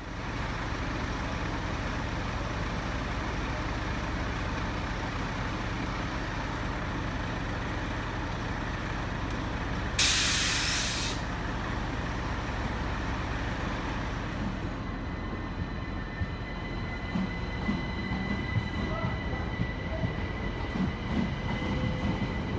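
Class 377 Electrostar electric multiple unit standing at the platform with a steady low hum. About ten seconds in there is a sharp hiss of released air lasting about a second. From about fifteen seconds it pulls away, with a steady high traction-motor whine over wheel rumble.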